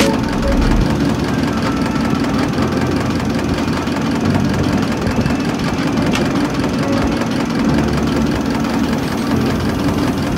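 Diesel injection pump test bench running steadily, driving a Denso four-cylinder rotary injection pump whose injectors spray fuel into the graduated test glasses during calibration. One faint click about six seconds in.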